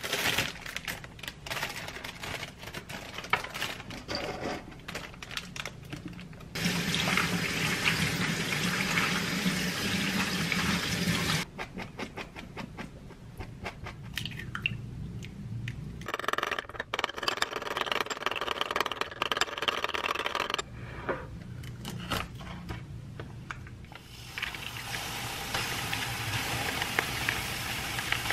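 Kitchen food-preparation sounds: clicks and rustles of packaging and dishes being handled, alternating with stretches of running or pouring water.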